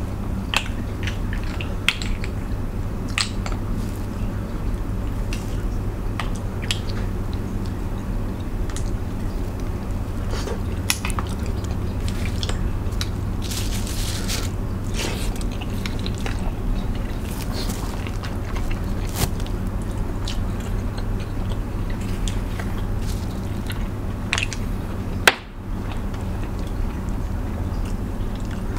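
Close-up eating sounds of seafood eaten by hand: chewing, with scattered sharp cracks and clicks of crab shell being pulled apart, over a steady low hum. One louder click about 25 seconds in.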